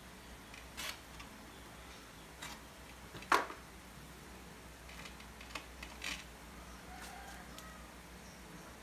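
Scattered short scrapes and knocks of tile-setting work: a tile and a steel trowel being handled against tile adhesive and a metal mortar pan. The loudest knock comes a little over three seconds in, over a faint steady hum.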